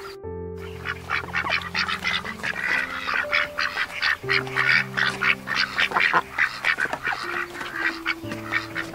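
A flock of domestic ducks quacking constantly, many rapid overlapping calls, starting a moment in after a brief break. Slow background music with held notes runs underneath.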